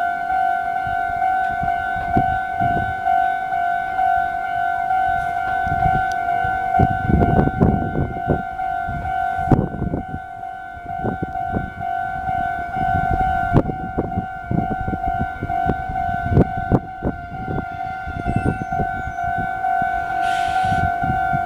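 Japanese railway level-crossing alarm ringing without a break, a rapidly repeating two-tone electronic ding. From about seven seconds in a train passes through the crossing, its wheels clacking and rumbling underneath.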